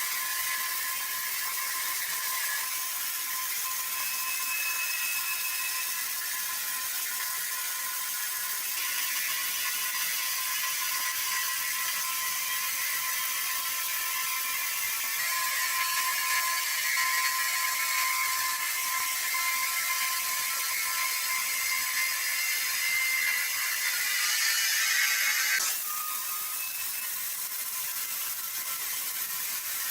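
Sawmill machinery running with a steady, high-pitched whir and several thin whining tones. It grows louder partway through, swells for a couple of seconds, then drops back suddenly.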